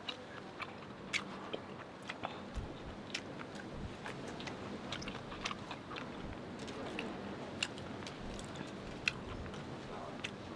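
Close-up chewing and eating sounds of a person eating with a mouth full of food, with irregular sharp little clicks and smacks throughout.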